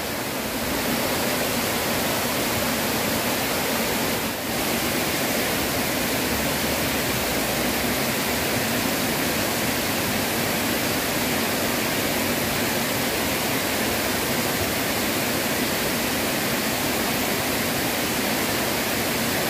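Small waterfall pouring over a stone weir into a river pool: a steady rush of falling water.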